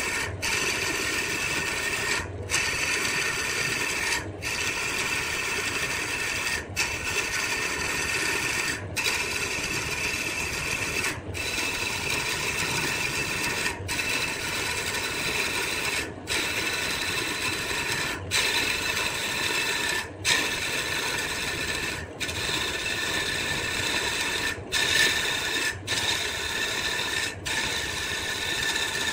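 Wood lathe running while a tool scrapes the spinning wood, a steady rasping noise broken by brief gaps every two seconds or so.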